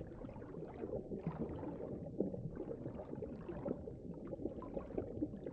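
Underwater ambience: faint, irregular crackling and gurgling water sounds over a low steady hum.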